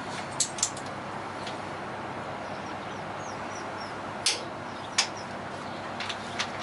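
Scattered sharp metal clinks and taps of hand tools, about six in all and a second or more apart, over a steady background hiss.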